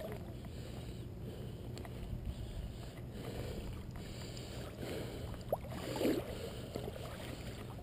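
Steady low rumble of wind on the microphone, with a single sharp click about five and a half seconds in and a short muffled knock just after.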